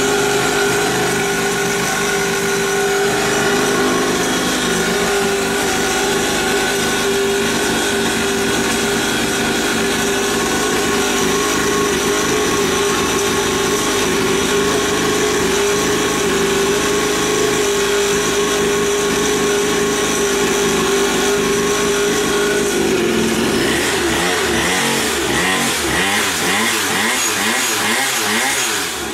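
Small 50cc two-stroke mini dirt bike engine running steadily at a constant note. From about 23 seconds in, the steady note gives way to a wavering, sweeping sound until near the end.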